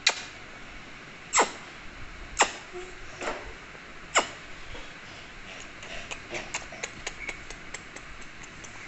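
Smacking kisses at close range: several sharp lip smacks about a second apart, then a quicker run of softer smacks and clicks in the last few seconds.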